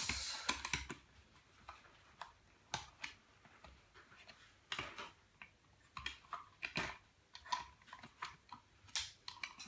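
Irregular light clicks and knocks of hands handling a small Intel NUC mini PC and fitting its bottom cover back on.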